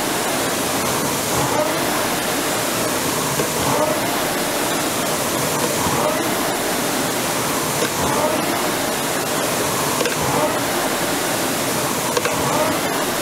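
Concept2 indoor rower's flywheel fan rushing steadily under hard rowing, swelling with each drive stroke about every two seconds, near 27 strokes a minute.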